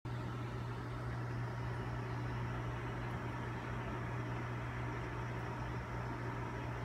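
Steady low electrical hum with an even hiss underneath, unchanging throughout.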